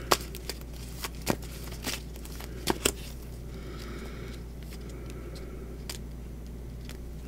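A deck of cards being shuffled and handled: several sharp card clicks in the first three seconds, then a soft, brief rustle of cards around four seconds in, over a low steady hum.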